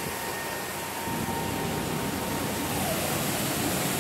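Steady rushing drone of aircraft turbine noise on an airport apron, with a thin high whine that fades out about two-thirds of the way through.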